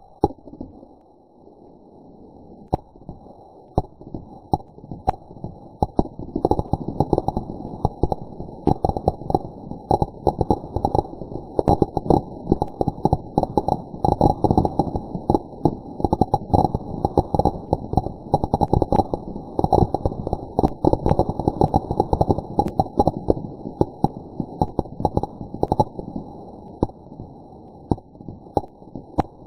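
A string of firecrackers going off in a long run of rapid pops, slowed down so the bangs come out low and muffled. A few scattered pops come first, then a dense crackle through the middle that thins out near the end.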